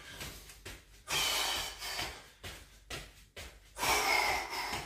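A man breathing hard from exertion during a cardio exercise: two long, heavy breaths about three seconds apart, with quieter breathing between.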